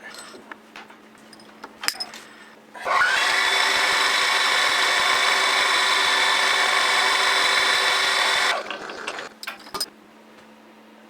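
Light clicks and taps. About three seconds in, a small workshop power tool's motor starts suddenly and runs steadily with a high whine for five or six seconds, then winds down, followed by a few more clicks.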